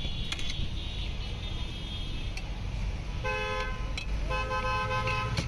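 A vehicle horn honks twice, a short blast then a longer one about a second long, over a steady low traffic rumble, with a few sharp clicks.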